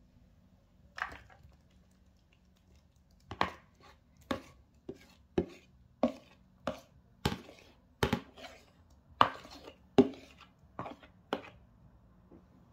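Metal spoon knocking and scraping against a plastic mixing bowl and a clear serving bowl as thick creamy fruit salad is scooped out. There is a single sharp knock about a second in, then a steady run of knocks a little under two a second from about three seconds in.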